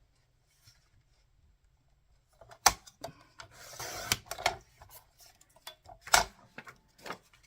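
Paper being cut on a paper trimmer: a sharp clack, then a scraping rasp as the blade slides through the paper, then another sharp clack a few seconds after the first.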